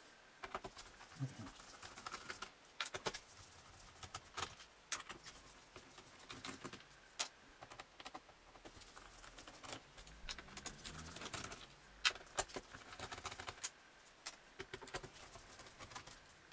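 Irregular small clicks and taps of a screwdriver turning screws out of a laptop's plastic underside, with the loose screws and the case being handled.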